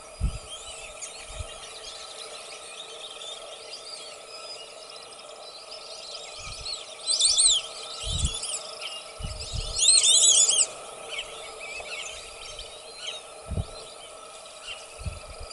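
White-faced whistling ducks (irerê) giving high whistled calls in bursts, loudest about seven and ten seconds in, over steady outdoor background noise with a few brief low thumps.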